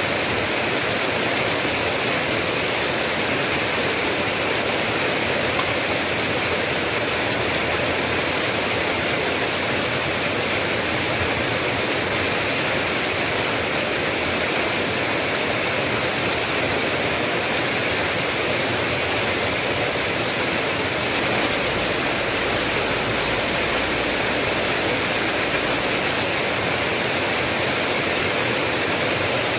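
Steady heavy rain: a continuous, even hiss with no separate drops standing out. About two-thirds of the way through, a faint low rumble joins it for several seconds.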